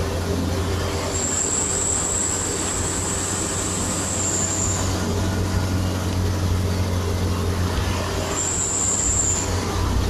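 Steady low drone of a vehicle's engine and road noise, heard from inside the cab while driving. A thin high whine comes in twice, from about one to five seconds in and again near the end.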